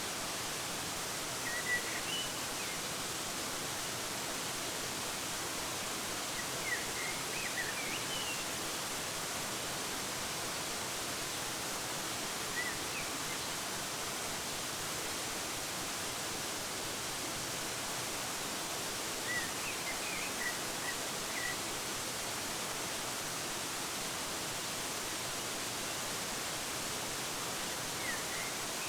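Steady rushing of a waterfall, with a small songbird chirping in short, high clusters of a few notes about five times.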